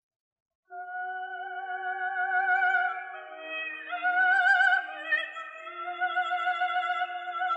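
Operatic singing, a high voice with a wide vibrato over sustained instrumental accompaniment, played back through a Sony Xperia Z5 Premium's speakers. It starts after a little under a second of silence.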